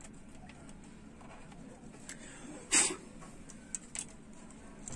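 Handling noise from fitting a flat ribbon cable to a TV mainboard: one short loud rustle near the middle, then a couple of small clicks, over low room noise.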